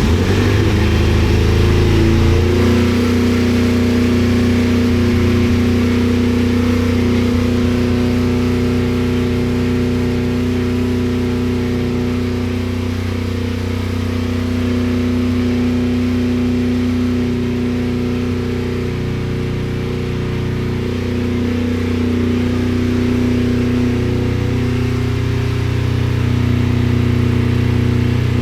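Honda Hornet motorcycle engine in a Formula Student race car, just fired up and settling within the first couple of seconds into a steady, even idle.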